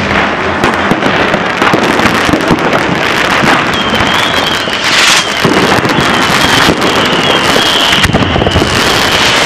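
Fireworks and firecrackers going off in dense, continuous crackling and popping, with a sharp bang about five seconds in and another near the end. From about four seconds in, a high whistle wavers above the crackle.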